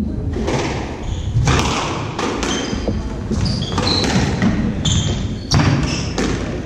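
Squash rally on a wooden court: a string of sharp knocks as the ball is struck and hits the walls, with thudding footsteps and short squeaks of court shoes on the floor.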